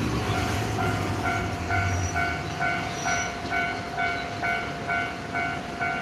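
Japanese railway level-crossing alarm ringing, an evenly pulsing electronic bell tone about twice a second that starts about a second in. Under it, the low engine noise of a bus pulling away fades out about two seconds in.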